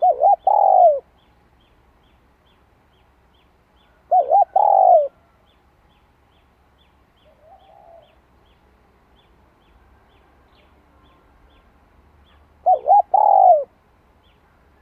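Spotted dove cooing three times, several seconds apart: each phrase is two short quick notes followed by a longer falling coo. A single soft, quiet call comes between the second and third phrases.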